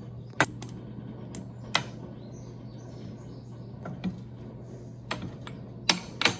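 Sharp metal clicks and taps, irregular and about ten in all, as a U-joint retaining clip is worked into its groove in a drive-shaft yoke, over a steady low hum.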